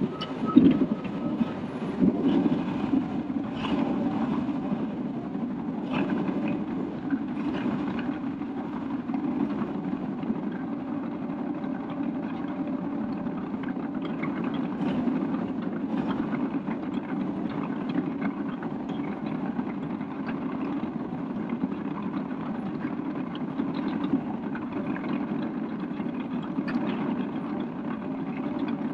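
Caterpillar D6K2 LGP crawler dozer at work: its diesel engine runs steadily, with scattered clanks from the steel tracks and running gear.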